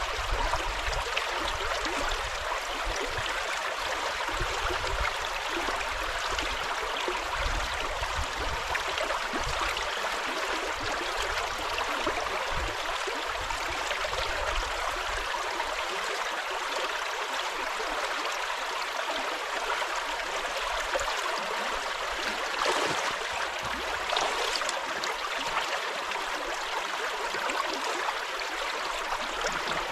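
River water flowing in a steady rush, with a low rumble that falls away about halfway through.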